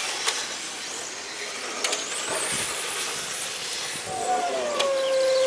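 Electric RC cars racing on an asphalt track: the high-pitched whine of their motors rises and falls over a steady hiss, with a few sharp clicks. Near the end a held, slightly falling lower tone comes in and is the loudest sound.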